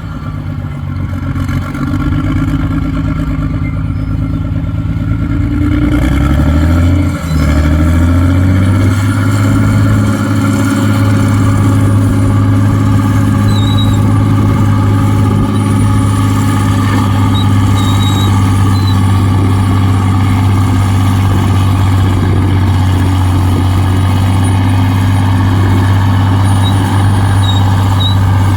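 Heavy diesel engine revving up, its pitch climbing over the first several seconds, with a brief dip about seven seconds in, then running loud and steady.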